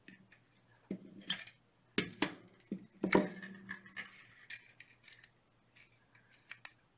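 Thin jewelry wire and small hand tools being handled on a work table: a series of sharp clicks and snaps with light rustling between them, the loudest about three seconds in.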